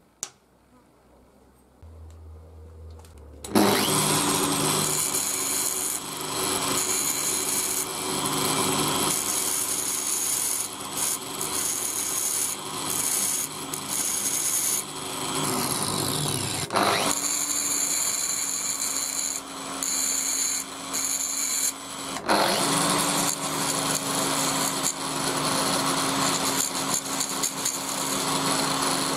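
DeWalt angle grinder running, set upside down on the bench, with a steel bolt held by hand against its abrasive disc, grinding metal. It starts about three and a half seconds in, winds down and speeds back up around the middle, and drops out briefly again a little later.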